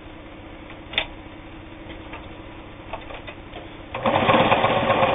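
Kenmore 158.19802 sewing machine: a sharp click about a second in and lighter clicks near three seconds over a faint steady hum, then about four seconds in the machine starts and runs fast, stitching.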